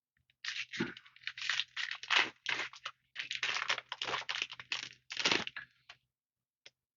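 Crinkling foil wrapper of a Magic: The Gathering booster pack being torn open and handled, in a run of irregular crackling rustles that stop about six seconds in.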